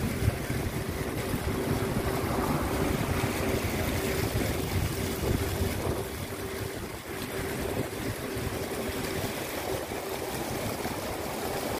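Jets of a lit plaza fountain splashing into their pool: a steady rush of falling water, with a faint steady hum under it.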